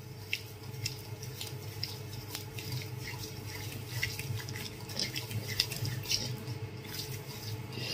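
Wet, soapy fingers rubbing and massaging a lathered face: soft, irregular squishes and small sticky clicks, over a low steady hum.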